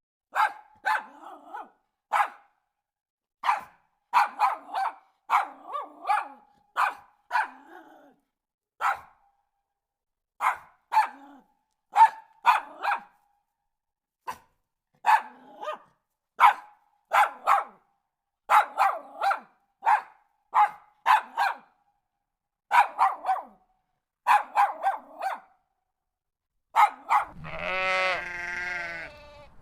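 A dog barking repeatedly in short, sharp barks, singly and in quick runs of two or three, with brief pauses between runs. Near the end the barking stops and a long, wavering bleat begins.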